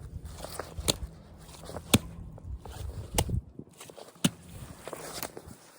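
Slow footsteps wading through shallow water and muck, each step giving a sharp click or crack, roughly one a second.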